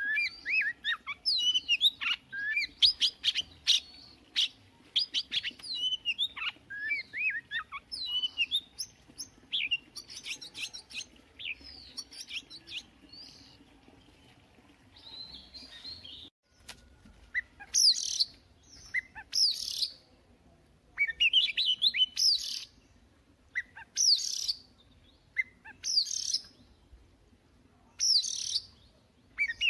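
White-rumped shama singing. It starts with a dense run of rapid whistles and clicks, quietens, and after a short break gives loud, separate song phrases about every two seconds.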